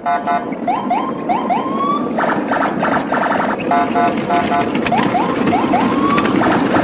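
Electronic siren-style sound effect playing in a loop: groups of rapid beeping blasts alternate with runs of five or so quick rising whoops, over a steady rumbling hum.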